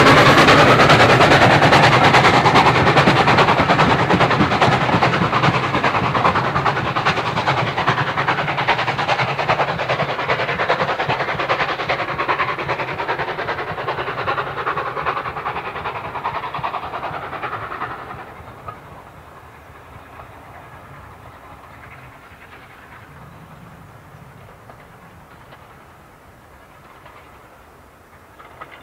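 SECR O1 0-6-0 steam locomotive No. 65 and its coaches running past and away, wheels clattering on the rail joints. The sound fades slowly, then drops away suddenly about eighteen seconds in, leaving the train faint in the distance.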